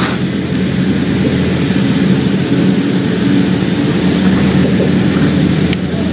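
Vehicle engine running steadily, with a low even hum, heard from inside a car.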